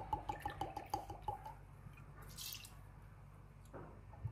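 Liqueur glugging out of a bottle of Grand Marnier in a quick run of gulps for about the first second and a half, as it is poured out by the shot. A short hiss follows about two seconds in, and a soft knock near the end.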